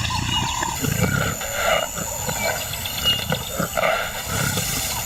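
Lion calling with a series of deep roars and grunts.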